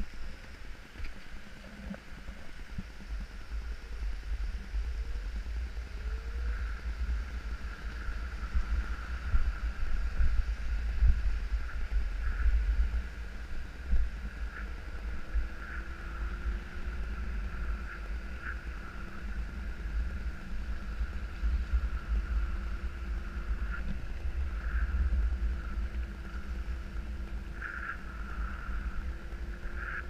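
Wind buffeting the microphone while travelling along a paved road: a steady, flickering low rumble over a faint steady hiss.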